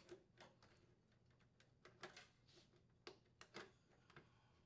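Faint, scattered clicks and taps of plastic and sheet metal as a refrigerator water inlet valve and its mounting bracket are handled and pressed into place against the cabinet frame, the clearest a few near the middle and toward the end.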